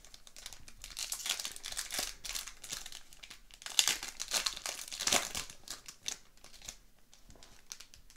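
A hockey trading-card pack wrapper being torn open and crinkled by hand: a run of crackling crinkles with two sharper, louder rips about halfway through, dying down after about six and a half seconds.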